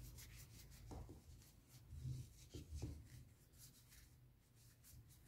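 Faint rubbing of a lint-free terry cloth over a metal amplifier knob as it is dried by hand, with a few soft bumps in the first three seconds.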